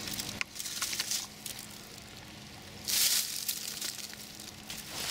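Dry fallen oak leaves rustling and crackling as they are disturbed, with a louder burst of crunching about three seconds in.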